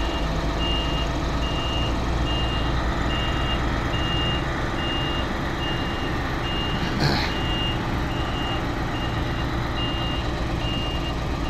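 A heavy machine's reversing alarm beeping steadily, about two beeps a second, over the steady running of diesel engines. A short louder sound comes about seven seconds in.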